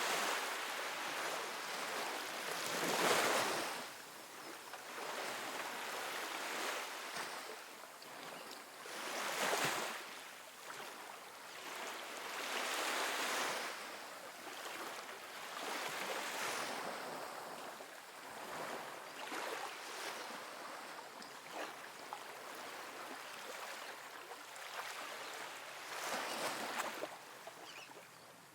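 Small ocean waves breaking and washing up a sandy beach: a steady hiss of surf with a swell every few seconds, the largest about three seconds in and another near ten seconds.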